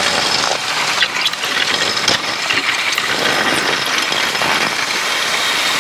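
Steel spring-tooth harrow dragged over loose crusher-run gravel: a steady, dense scraping and rattling of stones under the teeth.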